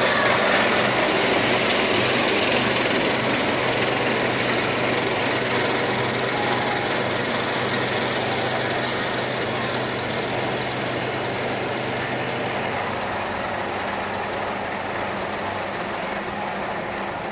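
Jersey Devil Coaster train climbing its lift hill: a steady mechanical hum and rattle that slowly fades as the train rises away. The low hum stops about three-quarters of the way through, as the train nears the crest.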